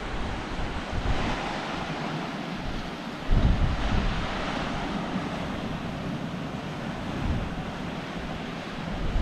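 Ocean surf washing in with a steady hiss, while wind buffets the microphone in low rumbling gusts, the strongest about three seconds in.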